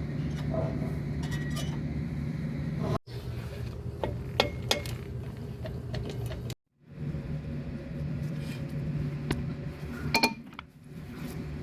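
Steady low mechanical hum with scattered light metallic clinks; the hum cuts out abruptly twice, about three seconds in and again past six seconds.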